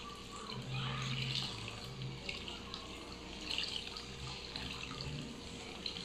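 Milky rice-and-cinnamon liquid trickling and splashing through a plastic mesh strainer into a bowl while a metal spoon stirs the ground rice in the sieve; a soft watery hiss that comes and goes.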